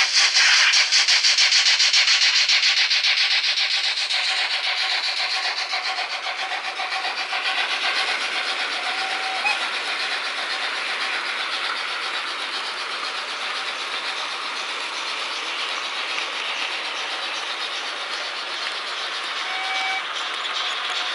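Märklin HO BR 94 model steam locomotive running with its passenger train. Its sound decoder plays fast steam-exhaust chuffs over a hiss that fade after the first few seconds, leaving a steady rushing running noise of the model train on the track.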